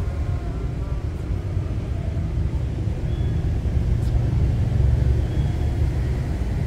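Steady low outdoor rumble, with a faint knock about four seconds in.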